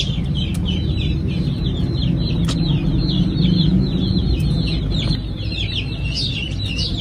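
Young chicks peeping constantly: many short, high cheeps that fall in pitch, several a second, over a steady low rumble.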